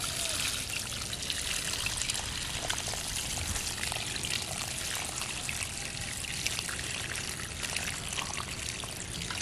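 Water pouring in a steady trickle from the mouth of a tipped terracotta clay pot, splashing onto grass and soil.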